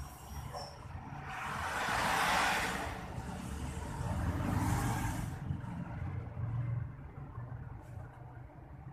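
Road traffic going by: two swells of vehicle noise rise and fade a couple of seconds apart over a steady low hum, then it quietens.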